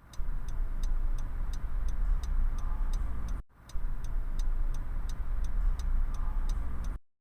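Wind buffeting the microphone in a low, rumbling rush, with a steady high ticking about three and a half times a second over it; the sound drops out briefly about halfway and then starts again.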